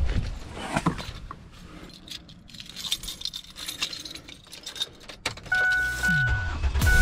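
A key ring jangles and clicks as the keys are handled at a Ford car's ignition. About five seconds in the engine starts and runs, with a warning chime beeping, and car-stereo music comes in right at the end.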